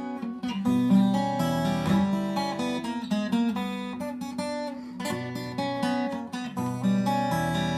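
Acoustic guitar playing the instrumental introduction to a bard song: a chord pattern that repeats about every five seconds, before any singing.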